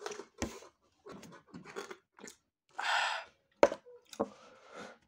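Close-up eating and drinking sounds: chewing and sips through a straw, in short scattered bursts with a few sharp clicks and one longer noisy sound about three seconds in.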